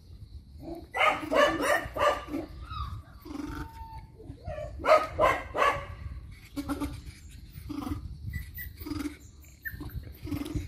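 Puppy yapping in play: two quick flurries of short yelps, about a second in and again about five seconds in, then scattered softer yelps.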